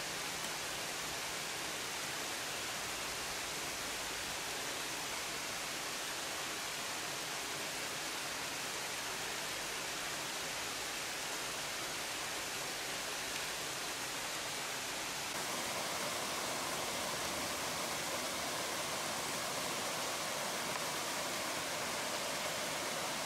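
Steady rush of a small waterfall and stream, an even hiss of falling water. About two-thirds of the way through it shifts slightly, becoming a little louder and fuller.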